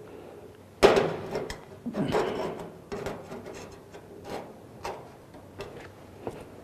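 Sheet-metal pieces handled on a metal worktable: one sharp clank about a second in, then scraping and a few lighter taps.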